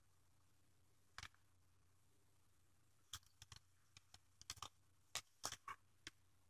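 Faint short ticks and scratches of a gel pen tip on paper. There is a single tick about a second in, then a quick irregular run of about a dozen from about three seconds in until near the end.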